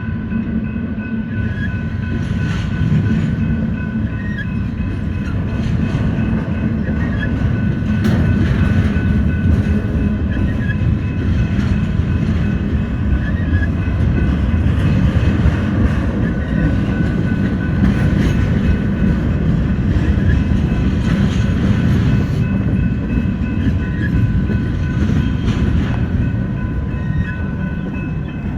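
Norfolk Southern freight train's cars rolling past on the main line: a loud, steady rumble of wheels on rail with scattered clicks over the rail joints and a thin, steady high ringing above.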